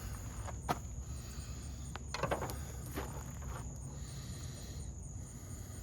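Steady high-pitched chirring of night insects such as crickets, with a few faint clicks and knocks scattered through.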